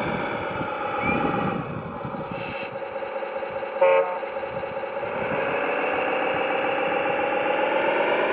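Radio-controlled model construction vehicle running, a pitched mechanical whine that slowly rises and falls. A short horn toot sounds about four seconds in.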